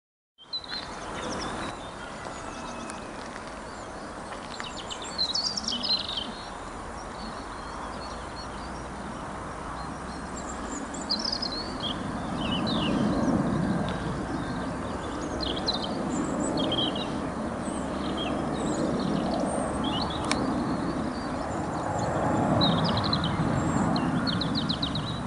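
Steady jet rumble of an Airbus Beluga (A300-600ST) cargo aircraft's two turbofan engines flying overhead, growing louder from about twelve seconds in. Small birds chirp on and off throughout.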